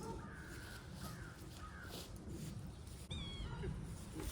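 Animal calls: a few short, high mewing notes, then a longer wavering call about three seconds in.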